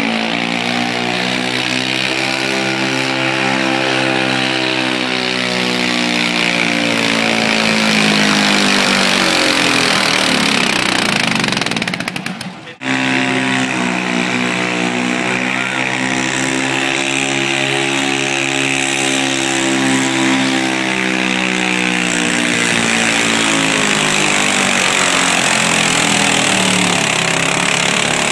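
Super stock garden pulling tractor engines screaming at high revs, the pitch climbing and then slowly sagging as the load builds. About 12 seconds in, the sound breaks off sharply and a second tractor's run starts with the same rise and fall.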